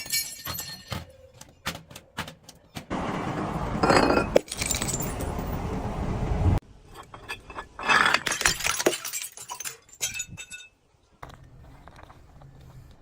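Glass bottles breaking and being crushed: a run of sharp clinks and cracks, with a longer crunching stretch of several seconds and another loud crunch about eight seconds in.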